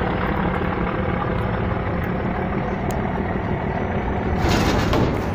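Diesel engines of river passenger launches running steadily, a low constant hum heard from on deck as two launches run side by side. A rushing hiss joins in near the end.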